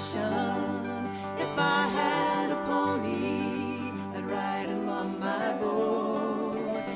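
Live acoustic country music: strummed acoustic guitars with a lap-played resonator guitar sliding between notes, playing steadily without a break.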